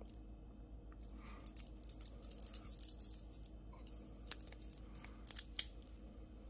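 Steel link bracelet of a Pagani Design chronograph watch jingling and clicking faintly as it is wrapped around a wrist and fastened, with one sharper click of the clasp closing near the end.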